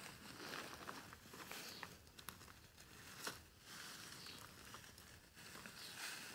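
Faint rustling and crackling of dry cereal sheaves as they are pushed and settled onto a horse's packsaddle, with scattered small ticks and one sharper crack a little past the middle.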